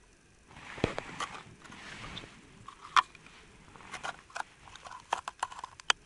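Handling noise of a small winter ice-fishing rod being laid down on the snow beside an ice hole: a run of irregular clicks, knocks and crunches, the sharpest knock about three seconds in.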